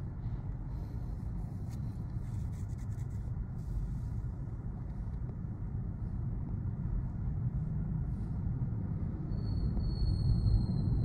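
Tyre and road rumble heard inside the cabin of a Tesla electric car driving through town, low and steady with no engine note. Near the end a faint thin high tone sounds for about two seconds.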